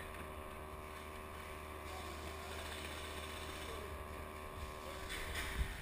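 A steady low mechanical hum with a faint constant tone over it, and a few sharp knocks near the end.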